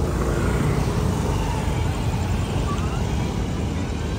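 Road traffic noise from slow, crowded traffic of scooters, motorcycles and cars: a steady mix of small engines running.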